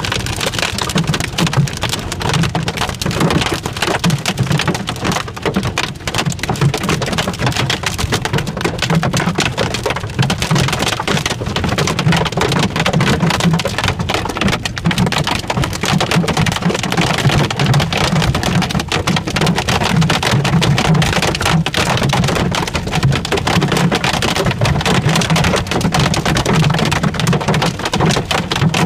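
Hail drumming on a car's roof and windscreen, heard from inside the moving car: a dense, steady clatter of countless small impacts, with a low steady rumble underneath.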